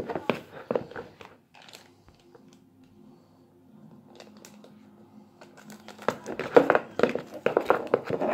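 Wet shredded paper napkin mixed with soap and baking soda being stirred and squeezed by hand, giving a crinkling, crackling sound. It goes quiet in the middle, where only a faint steady hum remains, then picks up again with busier crackling from about six seconds in.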